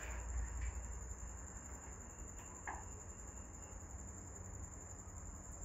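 Faint background noise: a steady high-pitched whine over a low hum, with a few faint clicks.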